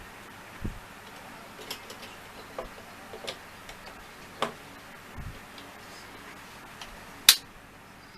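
Plastic model-kit parts being handled and pressed together: scattered light clicks and taps, with one sharp, loud click about seven seconds in.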